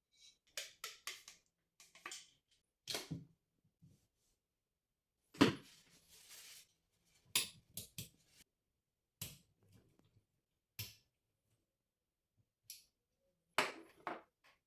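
Sharp metallic clicks, taps and clatters of AR-15 rifle parts and cleaning tools being handled and set down. They come in short clusters with pauses between, and the loudest knock is about five seconds in.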